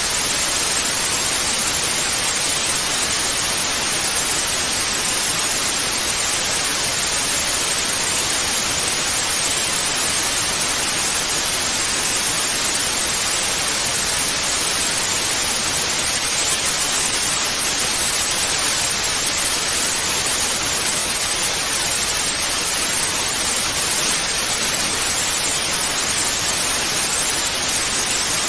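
Analogue TV static: a steady, even hiss with its weight in the upper range, unchanging throughout.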